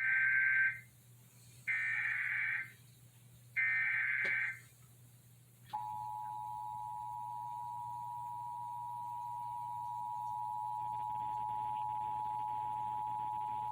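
Emergency Alert System tones: three one-second bursts of SAME digital header data, then the EAS two-tone attention signal (853 and 960 Hz together) sounding steadily for about eight seconds. Together they mark the start of a broadcast emergency alert, here a severe thunderstorm warning.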